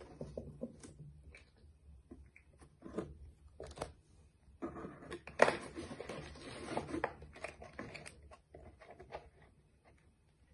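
Handling noise as a hand places small plastic toy figures on a cardboard set: scattered light knocks and clicks, and a denser stretch of rustling from about four and a half seconds in with one sharp click near the middle.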